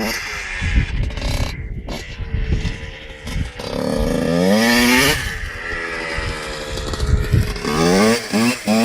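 Two-stroke motocross bike engine revving: one rev up and back down about halfway through, then quick repeated throttle blips near the end.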